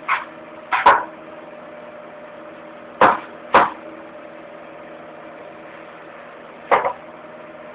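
Electric fan heater running with a steady hum. Five short, sharp sounds break through it: one at the start, one about a second in, a pair around three seconds, and one near the end.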